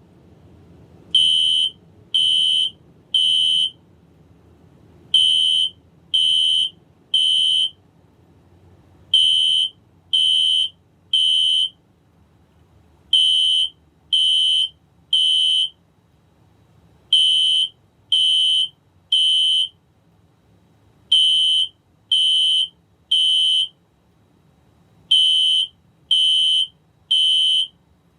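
Fire alarm sounding a high-pitched beep in the temporal-three evacuation pattern: three half-second beeps, then a pause, repeating about every four seconds.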